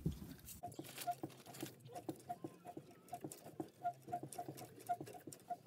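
Faint, irregular crackling clicks, a few a second, from Takis rolled tortilla chips. A faint steady low hum runs underneath.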